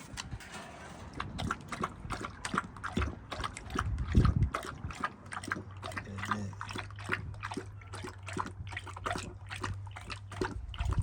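A dog lapping water, with quick wet laps several times a second. A low steady hum comes in about five seconds in.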